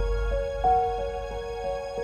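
Slow background music of held, sustained notes, with a new note coming in about half a second in.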